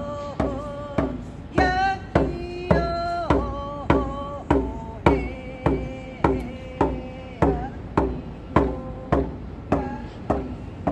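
Hand drum struck with a beater in a steady beat, about two strokes a second, under a voice singing a chant-like melody.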